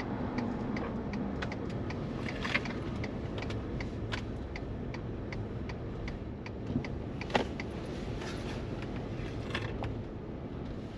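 Pickup truck running, heard from inside the cab as a steady low rumble, with scattered light clicks and rattles at irregular intervals.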